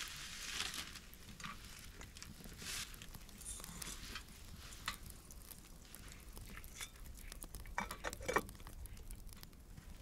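Plastic carrier bag rustling and crinkling as hands rummage in it, with scattered small clicks and knocks. A louder flurry of rustling comes about eight seconds in.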